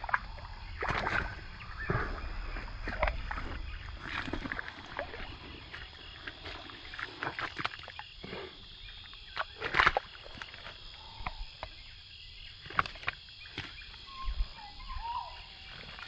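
Snakehead fish thrashing in a shallow muddy puddle while held down by hand: irregular wet slaps and splashes of water and mud, one louder splash about ten seconds in.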